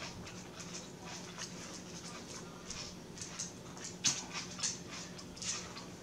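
Close-miked chewing: irregular wet mouth clicks and smacks, with a few louder ones in the second half, over a low steady hum.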